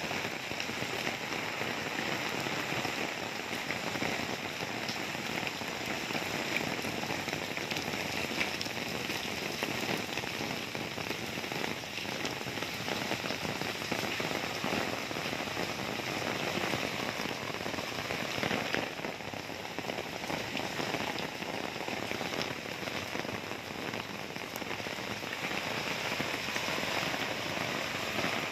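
Heavy rain pouring down steadily, a dense patter of drops hitting surfaces.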